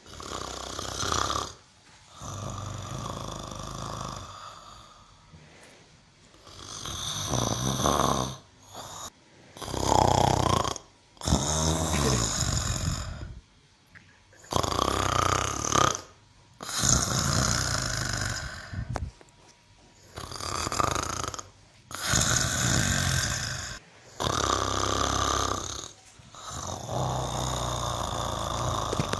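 Cow snoring in its sleep: about a dozen loud, rasping snores, each one to three seconds long, with short breaks between them.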